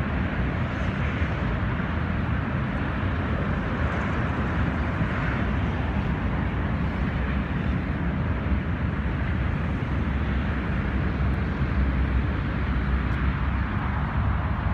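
Steady outdoor noise of road traffic with wind rumbling on the microphone.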